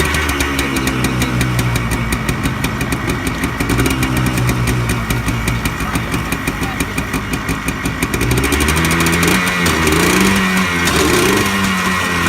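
A geared ATV's engine running steadily, then revving higher and louder about eight seconds in as it picks up speed.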